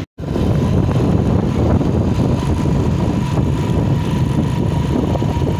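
Motorcycle engine running steadily while riding, with wind rumbling on the microphone.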